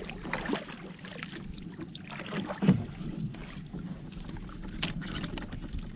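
Water lapping at the hull of a small wooden outrigger canoe, with a few light knocks against the boat; the loudest knock comes about two and a half seconds in.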